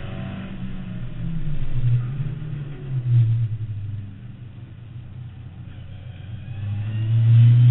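Mk2 Ford Escort's 2.0 Pinto four-cylinder on 45 mm carburettors, heard from inside the cabin, running hard on throttle. The note swells twice early on, drops away in the middle as the throttle is eased, then climbs to its loudest again near the end under hard acceleration.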